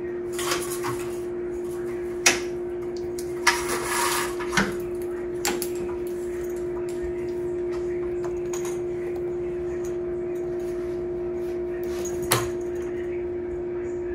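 A steady low hum with a few sharp taps and knocks on a hard surface, four or so spread through, and a short rustle about three and a half seconds in.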